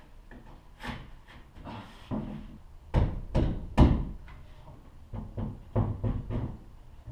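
A run of knocks and thumps from a foam-and-fiberglass camper door and rear wall being handled and pushed. The two loudest come about three and almost four seconds in, followed by several lighter knocks.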